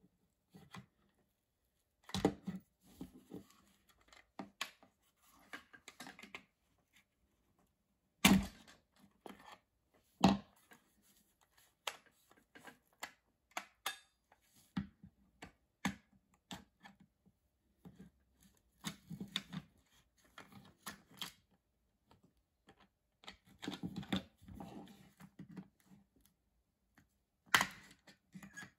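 Handling noise of a Stanley hot glue gun's plastic housing and hand tools on a workbench: scattered clicks, knocks and rattles with brief bouts of rubbing. The loudest are two sharp knocks a couple of seconds apart, about a third of the way through, and another near the end.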